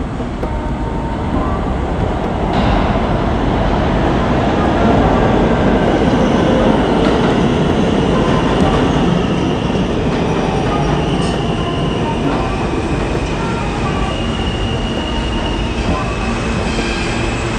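New York City subway train running on the rails with a steady loud rumble, and a faint high wheel squeal joining in partway through.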